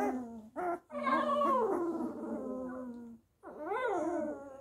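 A newborn Bernese Mountain Dog puppy, about 11 days old, crying in a series of high wailing cries. The longest cry falls in pitch, and the cries are broken by short gaps. The puppy is protesting at being handled.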